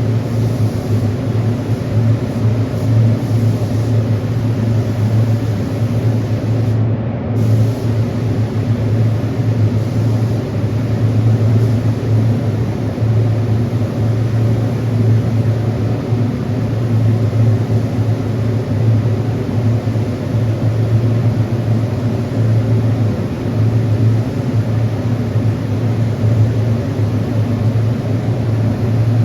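Steady, loud machine drone with a strong low hum, from motor-driven equipment running while the first coat of paint is sprayed.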